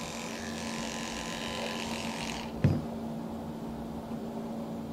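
Electric dog clipper buzzing as its blade shaves the fur between a dog's paw pads; the high buzzing hiss stops about halfway through. A short thump follows, while a steady low hum carries on.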